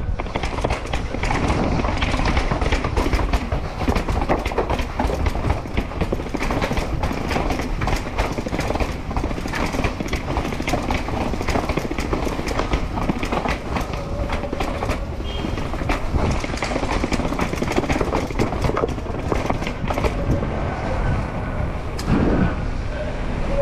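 Wind rushing over the microphone and a downhill mountain bike rattling and knocking over rough urban ground during a fast descent.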